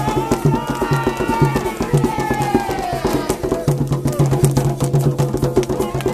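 Afro-Brazilian ritual drumming: hand drums and a clacking percussion keep a fast, steady rhythm. Voices chant a song over it for the first half, and then the drums carry on alone.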